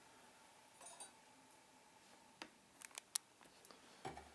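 Near silence with a few faint clicks and clinks of hand tools being handled in a toolbox, the sharpest about three seconds in.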